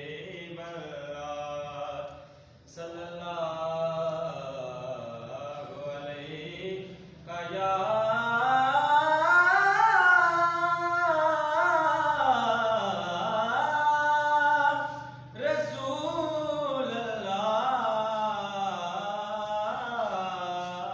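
A young man's unaccompanied solo voice chanting a devotional recitation in long melodic phrases whose pitch rises and falls, with short pauses for breath about two and a half, seven and fifteen seconds in.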